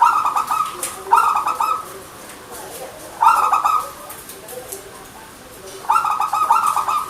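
Zebra dove (perkutut) cooing: four loud phrases of rapid, stuttering staccato notes, with fainter, lower-pitched coos between them.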